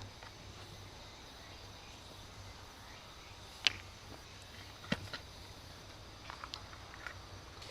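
Wood campfire crackling, with a few sharp pops scattered over several seconds against a quiet outdoor background.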